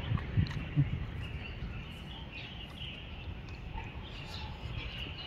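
Outdoor ambience: birds chirping here and there over a steady low rumble.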